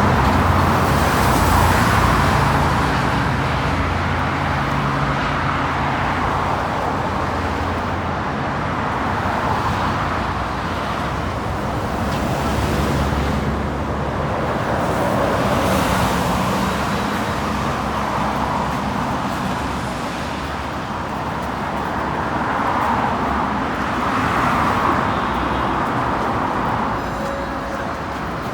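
Motor traffic on a busy city street: a continuous wash of engine and tyre noise that swells and fades gently as vehicles pass.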